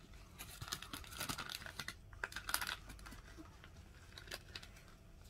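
Pet hamster rummaging in its bedding: faint, quick, irregular rustling and crinkling, busiest over the first three seconds, with a few more crackles about four seconds in.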